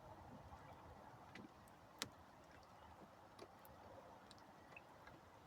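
Near silence, with a few faint scattered ticks and one sharper click about two seconds in.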